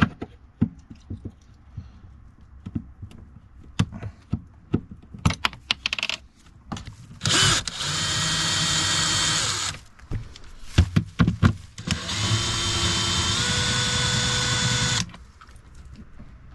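Cordless drill running in two steady bursts of a few seconds each, backing out screws to free the van's refrigerator; its pitch steps up partway through the second burst. Before that, a string of small clicks and knocks from handling.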